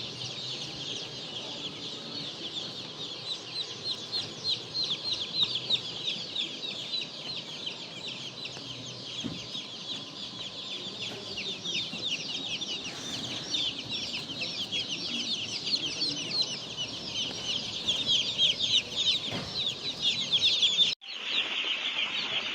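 A large flock of broiler chicks peeping continuously, with many overlapping short, high, downward-sliding cheeps. The sound breaks off for a moment near the end and then picks up again.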